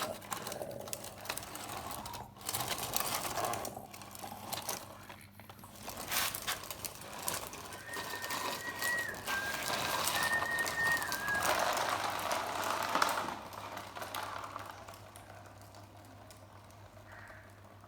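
Radio-controlled toy cars running: small electric motors whirring and plastic wheels rattling on a hard floor, fading toward the end. For a few seconds in the middle a high whistle-like electronic tone steps up and down between two pitches.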